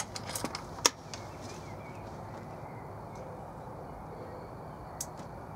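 FX Dreamline pre-charged air rifle being readied and fired: a few light clicks, then one sharp report a little under a second in, over a steady outdoor background.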